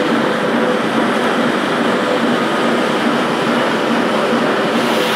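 Aulto three-brush floor scrubber running across a concrete floor: its electric motor turns the three brush discs under the deck, giving a loud, steady mechanical noise with no let-up.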